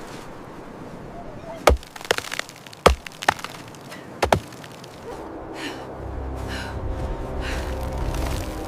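A handful of sharp cracking impacts, about six in under three seconds. About five seconds in, low droning music comes in, with a whooshing swell about once a second.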